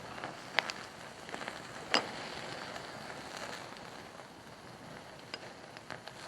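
Wood fire burning in a fire-pit stand, crackling over a steady hiss, with scattered sharp pops; the loudest pop comes about two seconds in.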